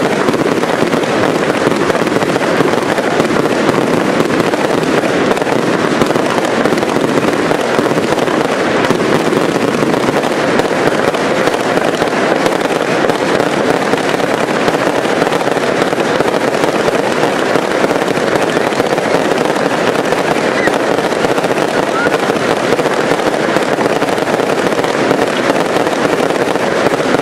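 Fireworks cakes firing continuously: a dense, unbroken run of rapid bangs and crackle with no pauses.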